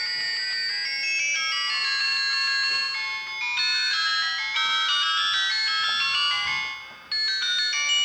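Philips E106 mobile phone ringtones: a synthesised melody of quick, high electronic notes that fades out about seven seconds in, followed at once by the next ringtone starting.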